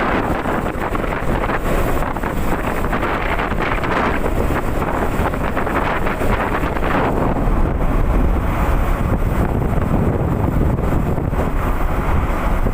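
Heavy wind noise buffeting the microphone on a moving motorcycle, with the Honda CB150R's single-cylinder engine running underneath.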